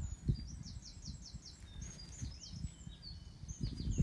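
Small birds singing in quick runs of short, high chirping notes, over an uneven low rumbling noise.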